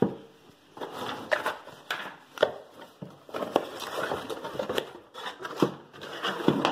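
Cardboard packaging being handled: a run of irregular scrapes, taps and knocks as cardboard inserts are lifted and plastic powerline adapters are pulled out of the box.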